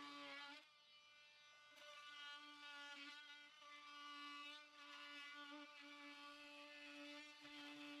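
Faint, steady buzzing whine of a corded power saw cutting into wooden lapboard siding, run in several short spells with brief pauses between.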